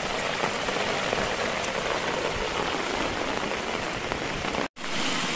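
Heavy rain falling steadily, with muddy runoff water rushing over stones. The sound is broken by a split-second gap near the end, then the rain goes on.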